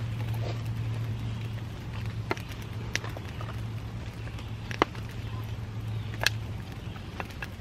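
Wood campfire crackling, with a few sharp pops and the knock of split sticks being laid on the fire, the loudest about three quarters of the way through, over a steady low hum.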